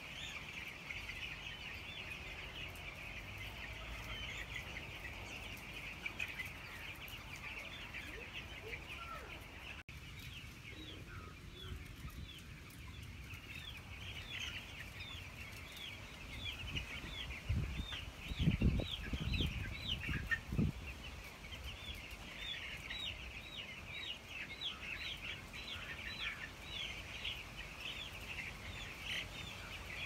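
A shed full of broiler chicks peeping, many short high cheeps overlapping continuously and growing denser in the second half. About two-thirds of the way through, a few seconds of low bumping noise stand out as the loudest sound.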